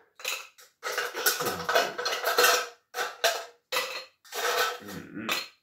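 Ice cubes dropping into a stainless steel cocktail shaker, clattering and rattling against the metal in a run of about seven separate bursts.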